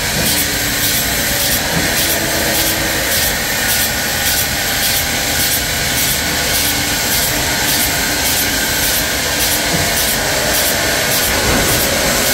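Sawmill machinery running steadily, a loud, even noise from a large saw at work on walnut logs.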